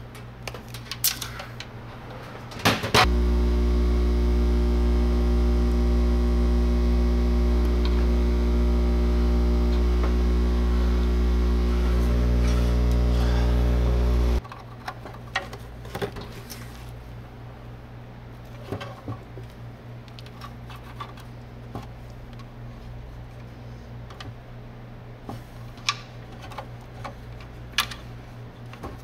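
Steady electrical hum with a strong low drone, switched on about three seconds in and cut off abruptly some eleven seconds later. Before and after it, small clicks and taps of parts and tools being handled.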